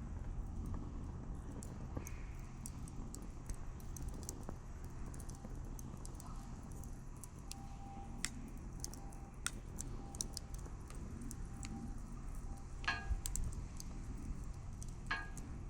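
Wood fire crackling, with sharp scattered pops over a low steady rumble. Two short rattles stand out near the end.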